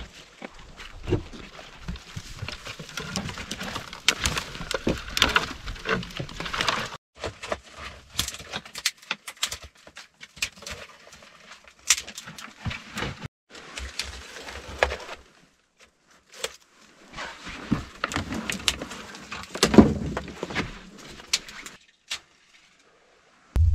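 Rustling, clicks and knocks of someone moving about and handling wood and small objects, in several short stretches that cut off abruptly.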